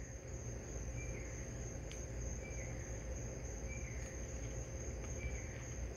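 Night insect chorus: crickets trilling in one steady high-pitched note, with a short lower chirp repeating about every second and a half, over a low steady rumble.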